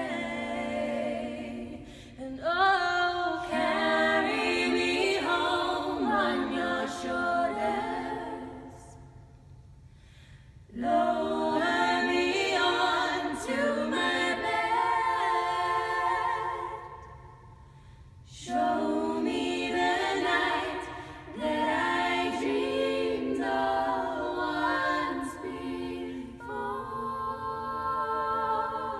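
Four female voices singing a cappella in close harmony, in long phrases with two short breaks in which the sound dies away in the chapel's stone reverberation.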